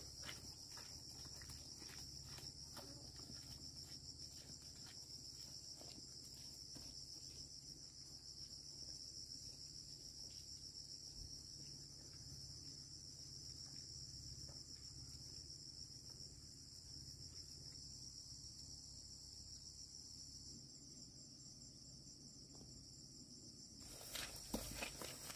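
Steady high-pitched chorus of insects shrilling, with faint footsteps through the grass in the first several seconds. Near the end, louder footsteps on wet, muddy ground.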